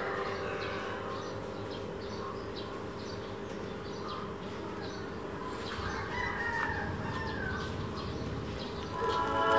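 A rooster crows once in the background, a drawn-out call about six seconds in, over scattered short high chirps.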